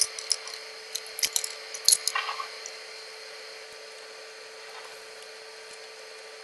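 Metal bar clamps clicking and knocking as they are set and tightened on a glued-up board, a handful of sharp clicks in the first two and a half seconds. After that only a steady faint hum remains.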